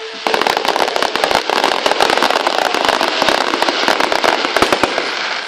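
Fireworks display crackling: a dense, rapid run of sharp pops and bangs that starts suddenly about a quarter second in and thins out near the end.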